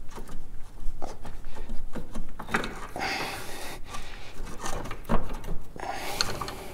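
Screwdriver levering and scraping against the front lower suspension arm of a Peugeot 405, working the arm off its stuck front bush: irregular metal knocks and clicks, with spells of scraping about three seconds in and near the end.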